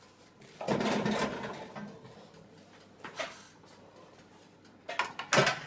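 A metal baking tray slides out of a small toaster oven with a scraping rattle about a second in. A short click follows, then a couple of sharp knocks near the end as the tray is handled and set down.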